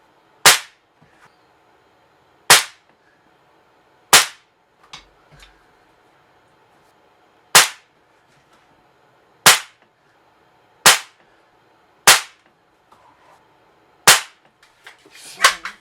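Crosman 362 .22 caliber pneumatic pump air rifle firing: eight sharp shots spaced one to three seconds apart.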